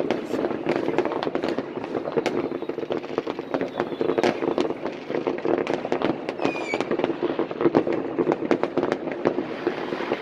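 New Year's fireworks going off all over a town: a dense, unbroken patter of firecracker cracks and rocket bangs, some close, most distant, with a short high whistle about six seconds in.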